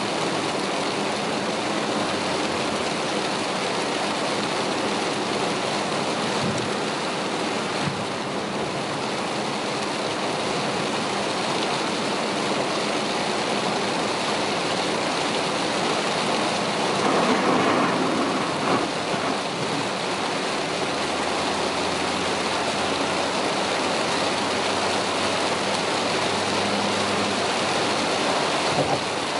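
Heavy rain pelting a car's roof and windshield, mixed with tyres running through standing water, heard from inside the cabin as a steady rushing noise. A little past halfway it swells briefly louder.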